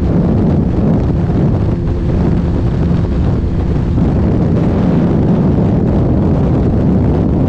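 Wind rushing over the microphone at high speed, over the steady drone of a KTM RC 200's single-cylinder engine held at the top of its rev range.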